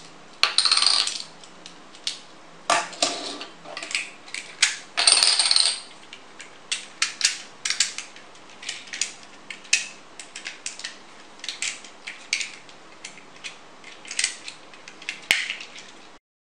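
Plastic transforming toy car being folded and snapped back together by hand: a run of sharp plastic clicks and clatters, with a few longer rattling scrapes in the first five seconds, as its hinged parts lock into place and its plastic coin discs are set down on a wooden table.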